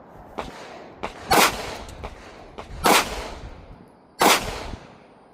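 Three slow, evenly spaced shots from a Smith & Wesson M&P Shield Plus compact pistol, about one and a half seconds apart, each a sharp crack with a short echoing tail. Fainter sharp cracks are heard between the first two.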